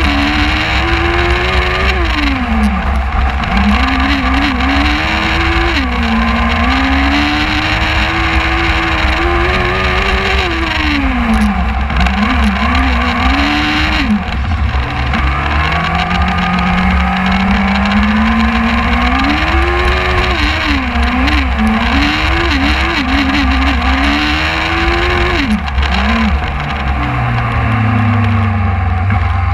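Onboard engine of a Superlite race car, its pitch rising and falling again and again as the throttle is opened and lifted through tight corners. About 26 seconds in it drops to a low, steady idle.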